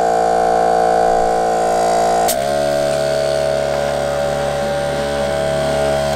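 ARB air compressor running with a steady electric hum while it pumps tires up to about 40 psi. About two seconds in there is a click and the hum drops slightly in pitch. The compressor then shuts off suddenly near the end.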